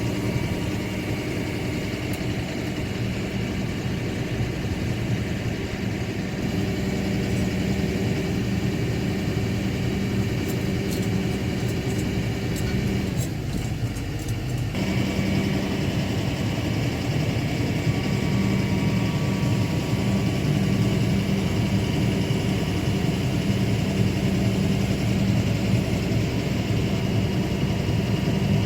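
Excavator's diesel engine running steadily. About halfway through, its note sags for a couple of seconds, then picks back up abruptly.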